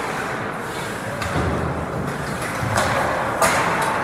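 Ice hockey rink play: a steady scrape of skates and sticks on the ice, a low rumble of the boards partway through, and one sharp crack near the end.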